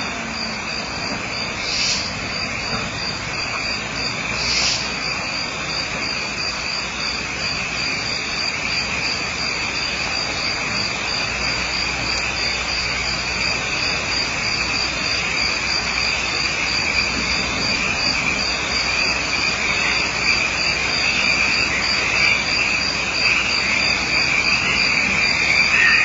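Crickets chirping in a steady, even trill over a constant hiss, with two short higher chirps in the first few seconds.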